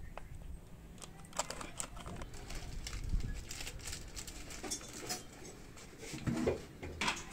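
Thin plastic packet crinkling and rustling in hand, a run of sharp crackles coming in several clusters.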